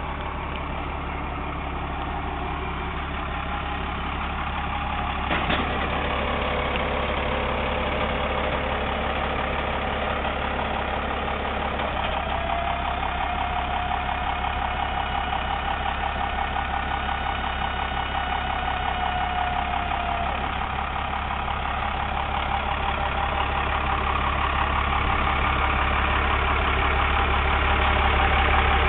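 Dodge 3500's Cummins turbo-diesel idling steadily while the electric-hydraulic pump of a homemade dump bed runs to tilt the flatbed up. A click comes about five and a half seconds in, and a steady whine sits over the engine from about twelve to twenty seconds in.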